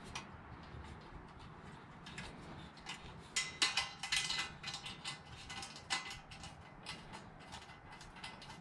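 Bolts and hose clamps being tightened on a metal-detecting sand scoop: irregular small metal clicks and ticks, busiest around the middle.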